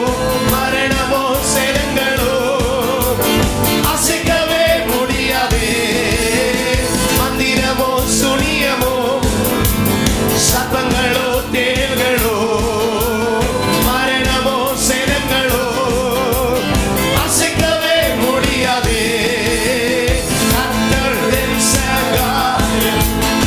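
A man singing a worship song into a microphone, his voice wavering on long held notes, over instrumental accompaniment with a steady beat.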